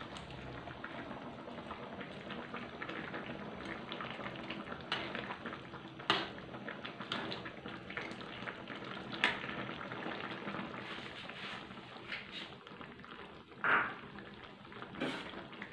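Coconut-milk curry bubbling at a simmer in a metal wok, stirred with a metal ladle that now and then knocks and scrapes against the pan.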